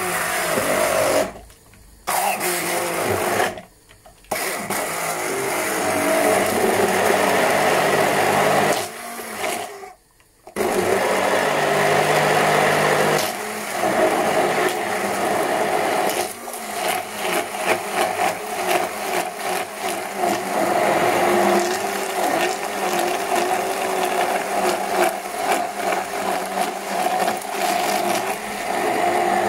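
Stick blender running in a plastic measuring jug, puréeing frozen strawberries into a sauce. It stops briefly three times, about one and a half, three and a half and nine seconds in, then runs on without a break.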